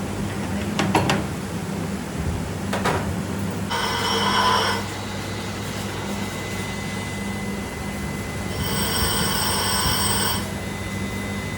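A workshop machine hums steadily. Two sharp knocks sound in the first few seconds, followed by two ringing, squealing metal sounds, the second one longer.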